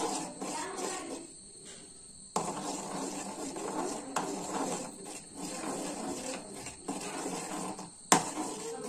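Steel spoon stirring and scraping melting sugar in an aluminium kadai, sugar being cooked down to caramel. A few sharp clinks of the spoon against the pan, the loudest near the end.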